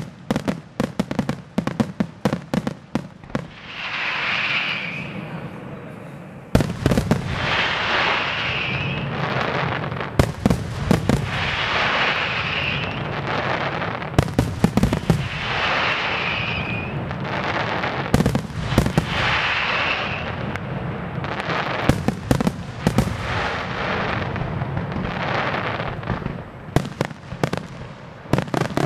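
Fireworks display: aerial shells going off in a dense run of sharp cracks and bangs, with a hissing rush that recurs about every four seconds. A loud bang about six seconds in starts a heavier stretch of cracking.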